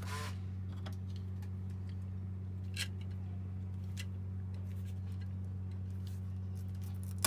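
A few sharp clicks and ticks of a small hand tool working on the end of an electrical wire, the loudest near the end, over a steady low hum.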